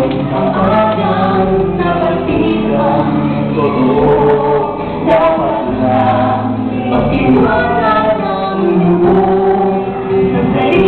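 Several voices singing a song together in chorus over instrumental accompaniment.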